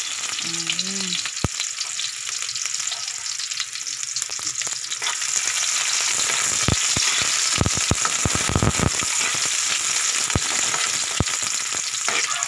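Garlic and sliced onion sizzling in hot oil in a metal wok, getting louder about five seconds in. A spatula scrapes and knocks against the pan as they are stirred, with a run of knocks in the middle.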